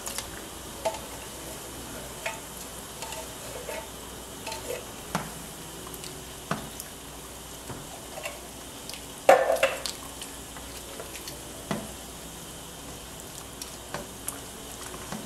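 A large pot of coconut-milk soup simmering with a steady hiss. A ladle knocks and scrapes against the pot and fruit pieces are dropped in, with one loud knock about nine seconds in.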